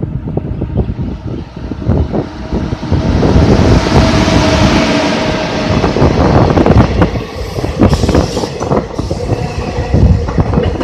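WAP-7 electric locomotive hauling an express passenger train past at speed: a rushing noise that builds as it nears and is loudest about four to five seconds in as the locomotive goes by, then the coaches' wheels clattering over rail joints.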